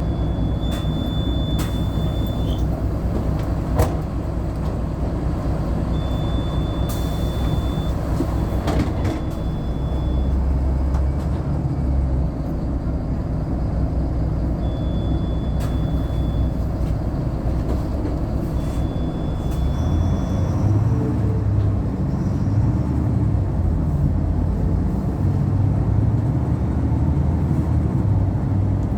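Inside a city bus: the engine's steady low rumble, with the body giving a few sharp knocks and rattles. Short high beeps sound five times over the first twenty seconds.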